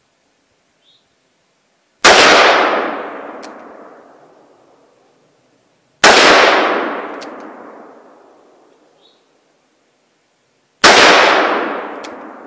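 Three shots from a large-bore revolver, about four to five seconds apart, each report dying away over a couple of seconds. A faint sharp tick follows a second or so after each shot.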